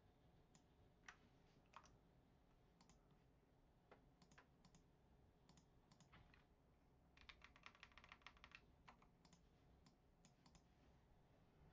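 Faint typing on a computer keyboard: scattered single key or mouse clicks, with a quick run of keystrokes a little past the middle.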